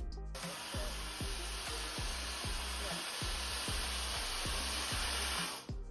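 TYMO AirHype hair dryer running: a steady rush of air with a high, even whine. It switches on just after the start and cuts off suddenly near the end.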